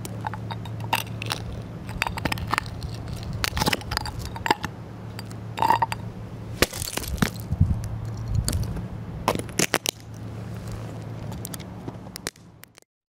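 Boot soles crushing a large spiny seashell on concrete: a run of sharp cracks and crunches as the shell breaks apart, over a steady low hum. The sound cuts off just before the end.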